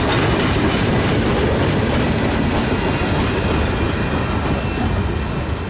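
Wheels of the last freight cars, a covered hopper at the tail, rolling over the rails as the train goes by. The sound eases off slightly in the second half as the end of the train moves away.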